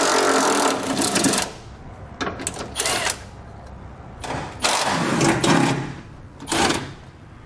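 Cordless Milwaukee M12 Fuel impact driver with a socket on an extension, running in bursts as it backs out the truck's factory 13 mm and 18 mm bolts. A long run comes at the start, then three shorter bursts, the last very brief.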